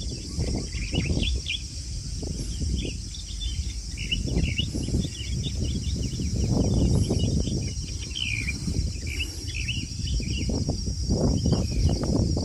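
Night insect chorus, a steady high shrill trill with many short chirps above a low rumbling noise that swells and fades.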